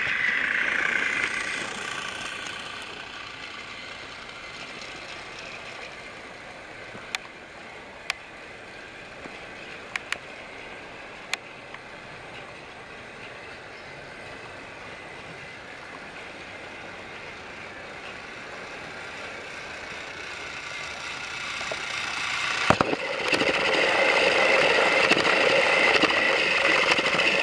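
Battery-powered Trackmaster toy train's motor and gears whirring steadily on plastic track. It is loud for the first couple of seconds, then quieter with a few sharp clicks in the middle, and swells loud again near the end as an engine passes close.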